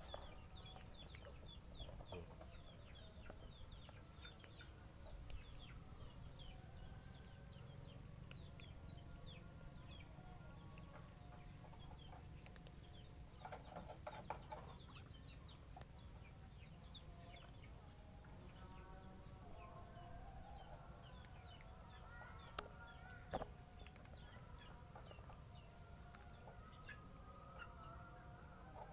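Faint chickens clucking in the background, in short pitched calls that come and go, over many quick high chirps throughout.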